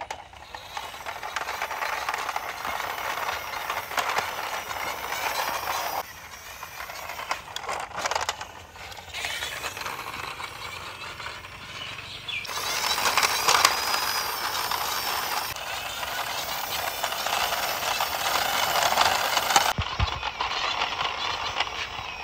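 Plastic wheels of a toy fire truck rolling along a rough concrete wall, a continuous rattling rasp that breaks off and returns at different levels several times, with a few sharp clicks.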